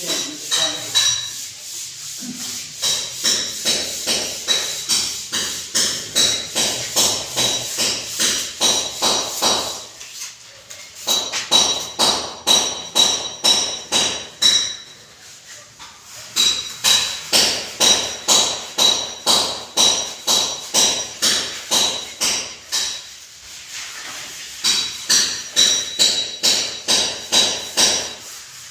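Hammer striking over and over, about two to three blows a second, each with a metallic ring, in runs broken by short pauses.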